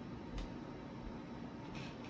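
A marker drawing on sketchbook paper: a faint tap about half a second in and a short scratchy stroke near the end, over a steady low room hum.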